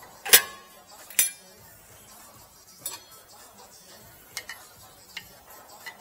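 Metal clinks and clanks from a screwdriver and brake caliper as the front caliper is worked off a BMW F10's brake disc. Two loud clanks ring briefly near the start, followed by a few lighter clicks spread over the rest.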